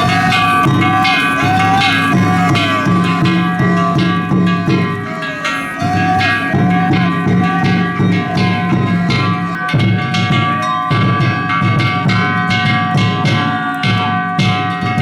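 Danjiri festival music: a taiko drum and small hand gongs struck in a quick, steady rhythm over sustained ringing metallic tones.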